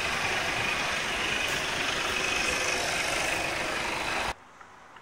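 Heavy goods vehicle tractor unit's diesel engine idling steadily, heard from under the coupled trailer; the sound cuts off suddenly a little over four seconds in.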